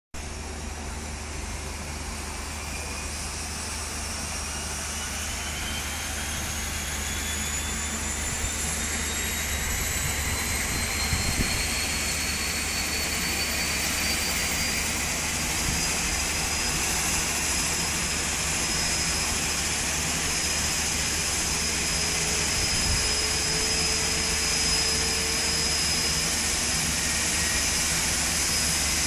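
Twin Otter seaplane's turboprop engine spooling up: a whine that climbs steadily in pitch and grows louder over about fifteen seconds, then holds at a steady high whine with an even rush of engine noise beneath.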